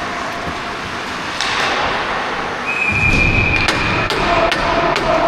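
Ice hockey on-ice sounds from the player's point of view: skate blades scraping the ice, sharp clicks of sticks or puck, and a heavier thud about three seconds in. A thin steady high tone sounds for about two seconds in the middle.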